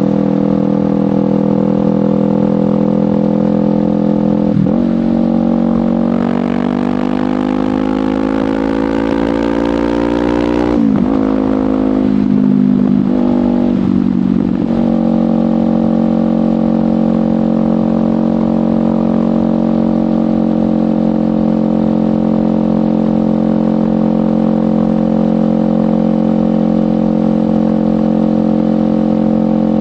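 Kawasaki Ninja 500's 451 cc parallel-twin engine through a LeoVince GP Corsa Evo exhaust while riding. It holds a steady note at first, then about six seconds in it pulls with a rising pitch for about five seconds and drops off sharply. After a few seconds of changing revs it settles back to a steady cruise.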